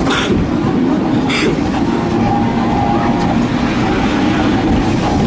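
Hong Kong double-decker electric tram running along its street track, heard from inside the lower deck: a steady rumble of wheels and running gear with a held hum. Two short clacks come about a second apart near the start.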